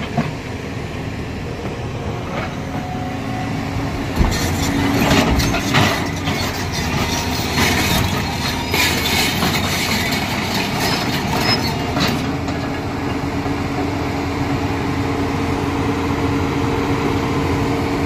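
Crawler excavators' diesel engines running steadily with a constant hydraulic whine, with irregular clanks and knocks of steel on rock between about four and twelve seconds in.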